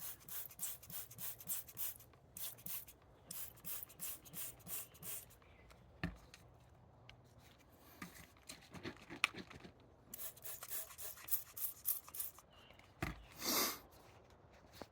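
Spray bottle of soapy water squirted in quick repeated strokes, about three a second, in two runs with a pause between, plus a couple of dull knocks.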